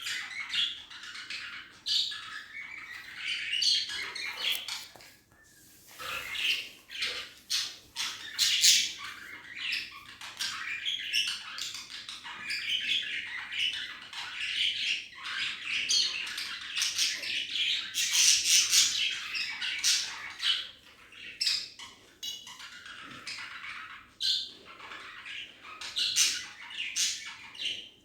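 Pet budgerigars chirping and chattering almost without pause: rapid high notes mixed with sharp clicks, with a brief lull about five seconds in.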